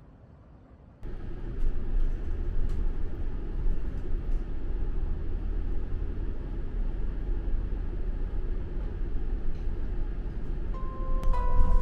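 Inside a moving bus: a steady low rumble of engine and road noise that starts suddenly about a second in. Music notes begin near the end.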